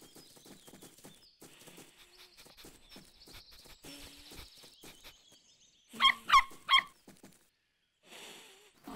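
A cartoon puppy gives three quick, high yaps about six seconds in, after a run of soft, quick tapping sounds.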